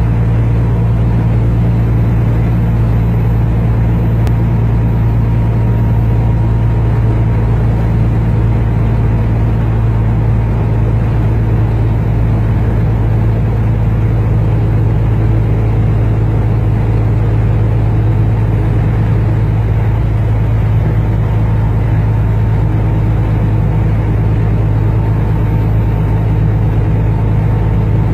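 Steady low engine drone and road noise heard from inside a moving truck's cab, unchanging throughout.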